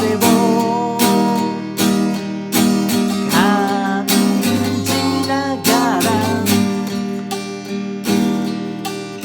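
Acoustic guitar strummed in a steady rhythm, with a melody line above it that bends in pitch.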